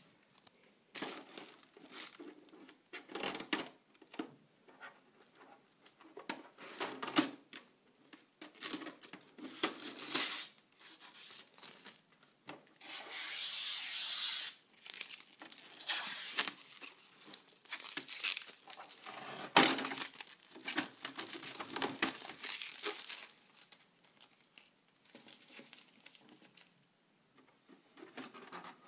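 Plastic packaging crinkling in irregular handfuls as it is handled and pulled around a new laser printer, with a longer steady tearing sound about 13 seconds in.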